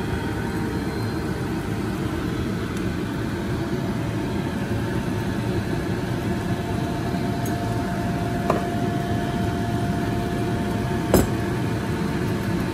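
Steady low mechanical hum from a running kitchen appliance, with two light clicks about eight and eleven seconds in.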